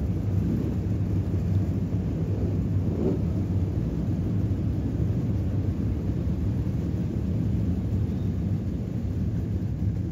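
Steady low rumble of outdoor background noise, with no speech.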